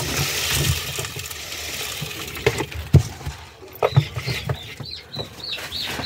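Ducklings peeping, a run of short high calls repeated about twice a second from about four seconds in. Before that, rustling and a few sharp knocks.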